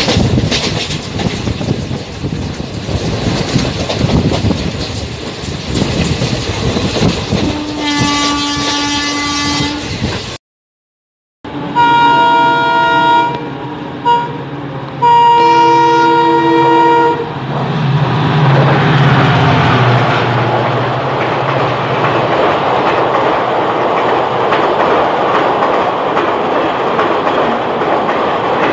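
Indian Railways express train running fast, heard from its open doorway as a rushing rattle of wheels on track, with the locomotive horn sounding for about two seconds near the ten-second mark. After a brief break, an approaching express locomotive sounds its horn three times, long, short and long. A low rumble then swells as the train rushes past, followed by the steady clatter of its coaches.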